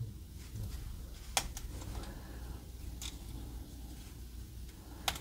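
Plastic parts of a Magic Square MS-B54 Tornado transforming figure being handled, with a few sharp clicks as the rotor blades are unpegged and unfolded, over a faint rustle.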